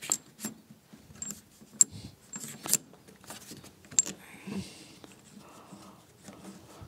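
Brass plumbing fittings being handled as a compression nut is started by hand onto a manifold: scattered sharp metallic clicks and taps over the first four seconds, then a soft rustle.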